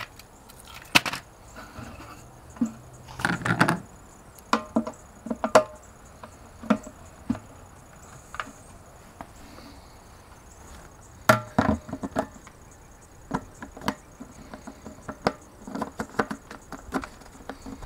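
Irregular knocks and clicks of plastic parts being handled on a plastic water tank, as a plastic deck-plate ring and lid are set over a freshly cut hole, with a short cluster of rattling knocks a few seconds in.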